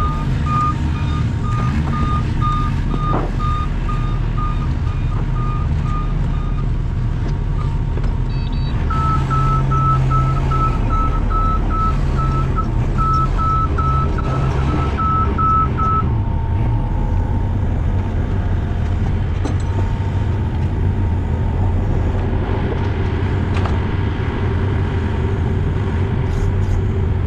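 Skid loader engine running steadily while it carries a boom load, with a machine's warning alarm beeping about twice a second in two stretches, stopping about six seconds in and starting again from about nine to sixteen seconds in.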